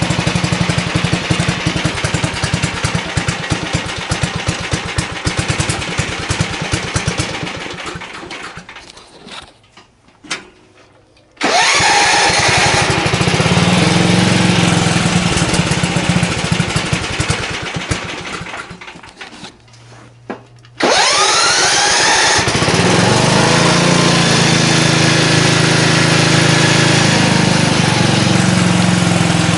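Small lawn-mower engine of a homemade riding cart running loudly as it is driven. Twice it fades almost to quiet and then comes back suddenly at full loudness, about a third of the way in and again past the middle. The second time a rising whine follows as it picks up speed.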